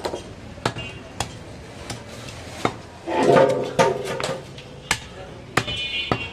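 Butcher's long knife knocking against a wooden log chopping block in sharp single strikes, several spread through, as goat meat is cut. A person's voice is heard briefly about three seconds in, the loudest sound.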